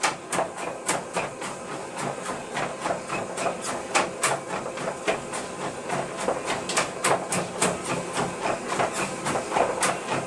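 A Gordon Setter's paws clicking quickly and a little unevenly on a running treadmill's belt as he walks, over the treadmill's steady motor hum.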